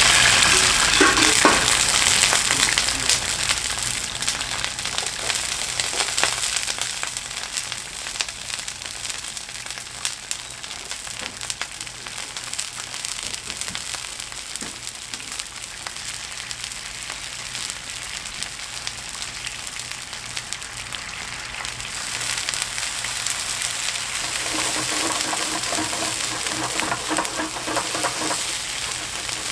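Food sizzling in hot oil in a frying pan. It is loudest at first, settles into a steadier, quieter sizzle, and grows louder again about 22 seconds in.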